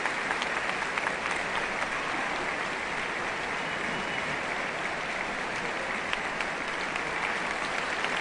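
A large audience applauding steadily in a concert hall after a band performance.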